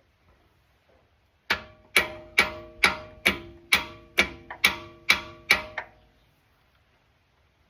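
Hammer blows on metal, about a dozen strikes at roughly two to three a second, each ringing briefly, knocking at the front differential's pinion flange to free it. The blows start about a second and a half in and stop about two seconds before the end.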